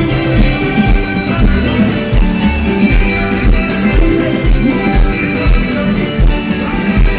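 Live Congolese rumba band music, with guitars playing over bass and a steady drum beat.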